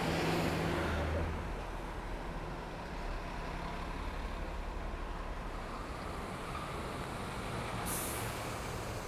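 Road traffic rumble. A heavy vehicle's engine hum is loudest in the first second or so and then eases into a steady low drone. A short, sharp hiss comes near the end.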